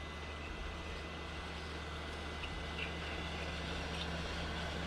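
Heat gun blowing hot air with a steady rushing sound and a low hum underneath, softening the adhesive under the iPad's digitizer glass.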